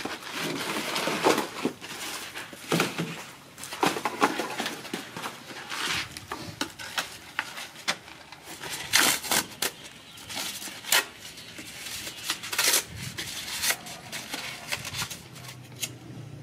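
Dry coconut husks being handled and set down on the ground: an irregular run of rustling, scraping and sharp clicks from the fibrous shells.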